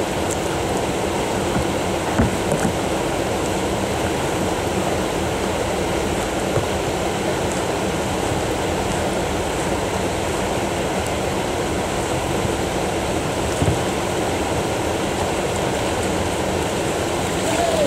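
Steady rush of flowing river water, with a couple of faint knocks.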